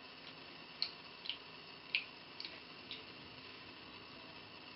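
Water dripping from a sink tap into the basin: five or six irregularly spaced, short, high-pitched drops over a faint steady hiss.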